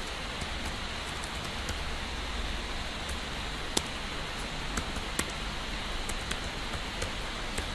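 Keystrokes on a computer keyboard: single clicks at an irregular pace, with a sharper one about four seconds in, over a steady background hiss.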